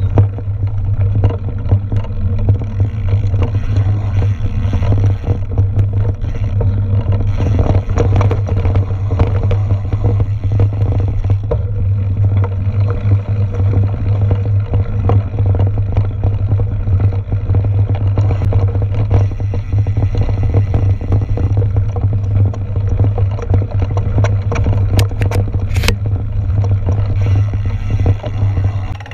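Steady low rumble with constant rattling and knocking: the ride noise of a mountain bike on a bumpy dirt and grass trail, picked up by a camera mounted on the bike.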